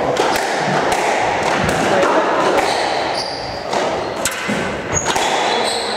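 Indistinct chatter of spectators echoing around a squash court, with a few sharp thuds and short high squeaks of shoes on the wooden floor between rallies.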